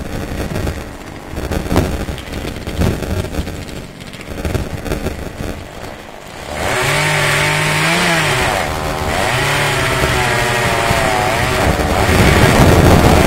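Chainsaw cutting into the base of a tree. It is low and uneven at first, then about six and a half seconds in it goes to full throttle, its pitch rising and dipping under load, and it gets louder near the end.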